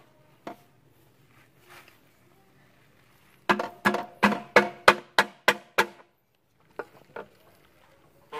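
Metal bar wedged in a diesel engine's crankcase, struck hard about nine times in quick succession, roughly three blows a second, each knock ringing, to drive a piston out of its cylinder. Two lighter knocks follow near the end.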